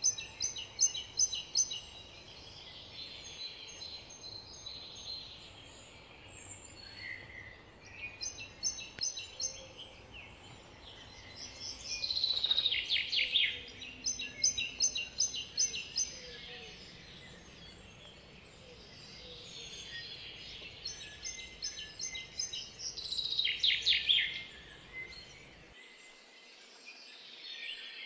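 Songbirds singing: bursts of quick, high repeated notes every few seconds, and twice a fast trill falling in pitch, over a faint steady outdoor background.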